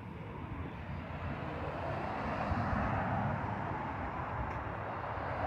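Rushing noise of passing road traffic. It swells over the first couple of seconds and then holds steady.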